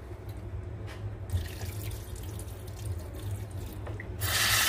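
Water in a kitchen sink as soaked lentils are rinsed to wash off their loosened skins: faint splashing and drips, then a tap running hard from about four seconds in, all over a low steady hum.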